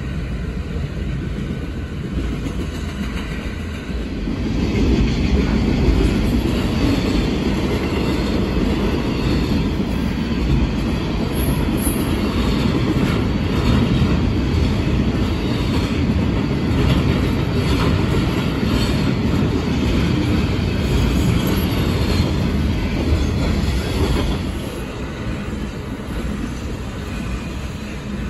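Intermodal freight cars of a BNSF train rolling past: a steady rumble of steel wheels on rail with clicking over the rail joints and a brief high wheel squeal near the middle. The rumble grows louder about five seconds in and eases again near the end.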